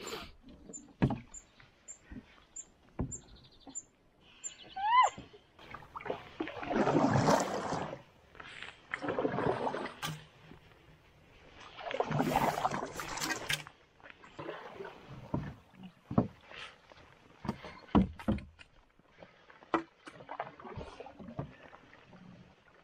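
Canoe paddles knocking against the hull and swishing through the water as a canoe is pushed and paddled backwards out of a narrow, overgrown creek. Sharp knocks come throughout, with three longer swishing strokes in the middle. A short rising squeak sounds about five seconds in.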